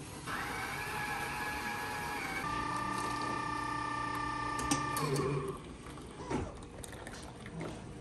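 Self-service automatic coffee machine running as it dispenses coffee into a paper cup: a whirring motor noise, then from about two and a half seconds a steadier whine of several tones that cuts off about five seconds in, followed by a few light clicks.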